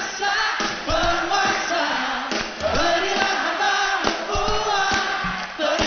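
Live rock performance: a male singer's sustained, wavering sung lines over the band, with the audience's voices underneath.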